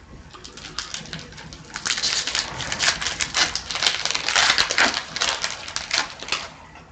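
A 2013-14 Upper Deck Series 1 hockey card pack being torn open and its wrapper crinkled, a dense run of crackles that grows louder about two seconds in and dies away near the end.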